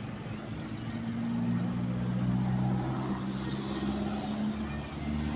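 Basuri telolet multi-tone air horn on a bus playing a tune of held low notes that step from one pitch to another, starting about a second in, over traffic noise.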